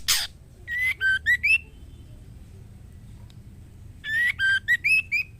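Female white-rumped shama calling: a short harsh note at the start, then two brief phrases of clear whistled notes with upward slurs, about three seconds apart. These are the calls of a hen in breeding condition calling for a male.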